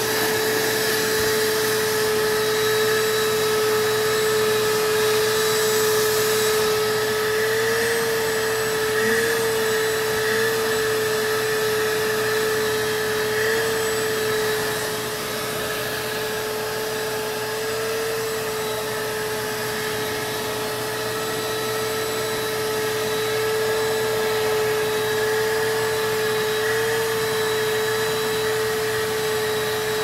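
Vacuum cleaner running steadily, its narrow nozzle worked over the fur of a taxidermy tiger: a steady motor whine over airy suction hiss. The whine wavers slightly in pitch a few times.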